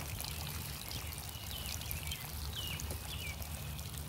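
Garden irrigation running at low pressure: water spraying and pattering from small holes drilled in the caps of PVC risers, as a steady hiss. Wind rumbles on the microphone underneath, and a few short descending chirps come through in the middle.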